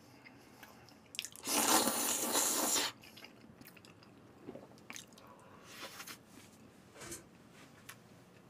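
A person eating noodles and braised beef. About a second and a half in comes a loud slurp lasting about a second and a half, followed by quiet chewing with small clicks of chopsticks and dishes.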